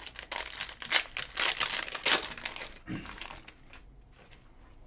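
Foil trading-card pack wrapper crinkling and crumpling as it is handled, dense for about the first three seconds, then dying down to faint rustling.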